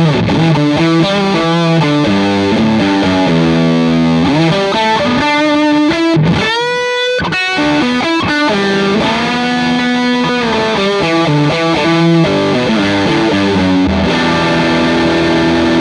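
Fender Telecaster played through the D-Sound Fisherman British-style overdrive pedal, with a little delay, into a Vox AC30 amp: overdriven electric guitar lines and chords, with a bent note rising about six seconds in and a held chord near the end.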